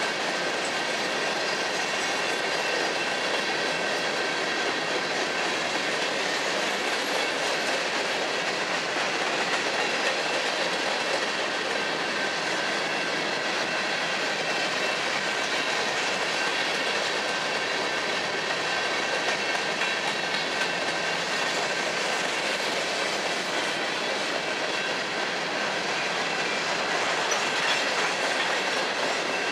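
Freight train of covered hopper cars rolling steadily past on the near track, a continuous rolling rumble of wheels on rail, with a thin steady high-pitched ring over it.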